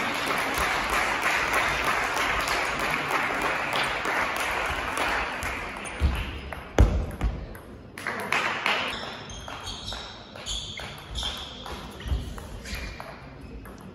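Table tennis rally: the ball clicks sharply off the bats and the table again and again, with hall chatter in the background. The chatter is loud for the first six seconds or so and then eases, and a few heavy thuds of footwork stand out about seven seconds in.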